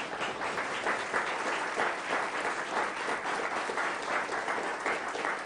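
A club audience applauding steadily, many hands clapping at once, welcoming a singer who has just been introduced.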